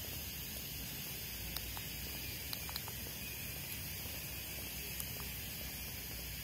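Steady outdoor background hiss with no clear source, broken by a few faint, brief ticks.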